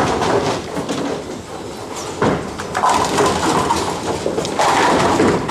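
Bowling alley din: balls rolling on the lanes and pins clattering, with louder knocks about two seconds in and again near the end, over faint background voices.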